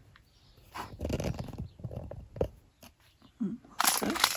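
A dog's short low whine about three and a half seconds in, after soft shuffling and a light knock, then packaging crinkling loudly near the end.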